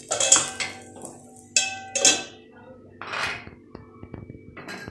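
Steel kitchenware clinking and knocking: a few sharp metallic clinks with brief ringing, and a scrape about three seconds in.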